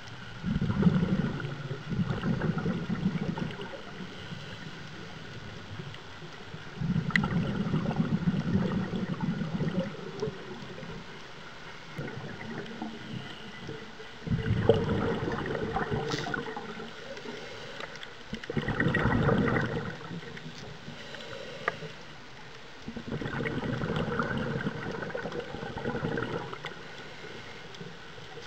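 A scuba diver's regulator breathing underwater: five bubbly gurgling exhalations, each lasting two to three seconds and coming every five to seven seconds, with quieter inhalations between them.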